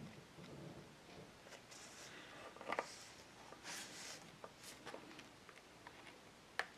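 Faint rustling of paper and card under moving hands, with a few light clicks and taps, the sharpest near the end; otherwise quiet.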